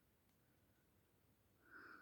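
Near silence, with one faint, brief soft sound near the end.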